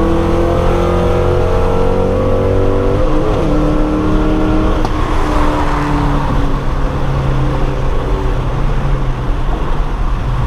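Ford Mustang's 4.6-litre three-valve V8 pulling at full throttle, its pitch climbing steadily, then dropping sharply about three seconds in at an upshift made early, at about 5,000 rpm. Afterwards the engine note fades under rising wind and road noise as speed builds.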